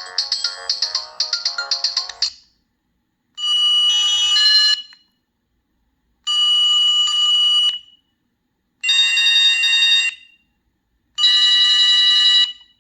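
Sony Ericsson T226 mobile phone playing its preloaded ringtones through its speaker. A quick tune of rapid short notes ends about two seconds in. Then come four separate ringing tones of about a second and a half each, with short silences between.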